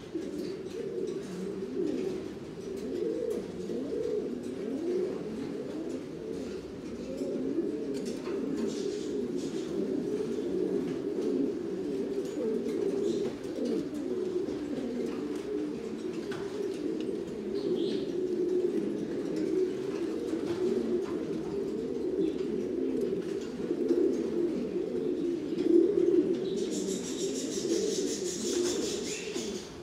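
Buchón Gaditano pouter pigeons cooing without a break, many low coos overlapping. Near the end a high, rapidly pulsing hiss joins in.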